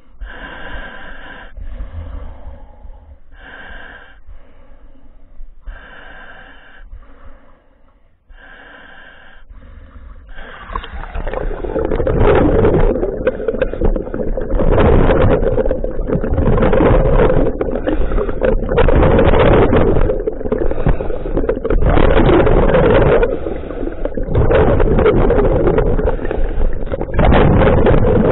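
Scuba diver breathing through a Divator full-face mask's regulator: short breath hisses about every two seconds, then, about ten seconds in, much louder gurgling bursts of exhaled bubbles under water in a steady breathing rhythm.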